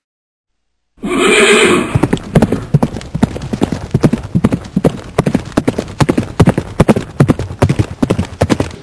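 A horse whinny starts about a second in, then a fast clip-clop of hoofbeats runs on: the galloping sound for stick horses being 'ridden'.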